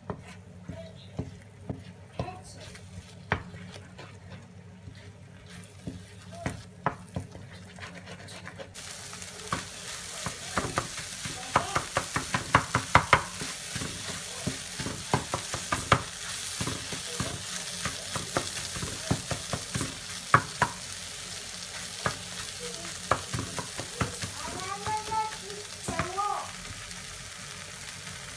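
A wooden spatula stirs and chops an egg into onion-tomato masala, scraping and knocking against a nonstick frying pan. The food sizzles in the pan. The sizzle comes in about a third of the way through, and the knocks quicken into a rapid run in the middle.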